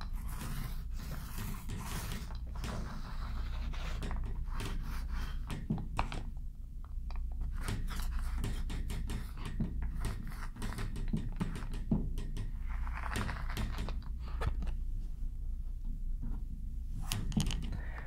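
Small paint roller spreading contact cement over drywall: a continuous sticky rolling and scraping with many small clicks and knocks as the roller is worked back and forth.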